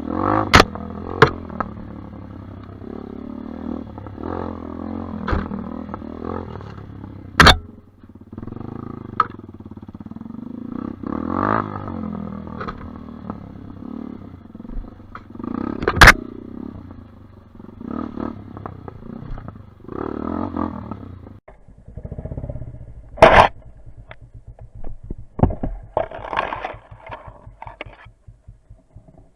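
Dirt bike engine revving up and down on rough ground, with sharp knocks and clatters as the bike bounces and scrapes over the trail. About two-thirds of the way through, the engine noise drops away and only scattered knocks and scrapes remain.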